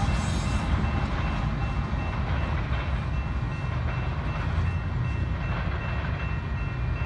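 A Union Pacific rear distributed-power diesel locomotive running at the tail of a freight train, a steady low rumble of engine and wheels on rail as it pulls away. A grade-crossing bell rings steadily and faintly behind it.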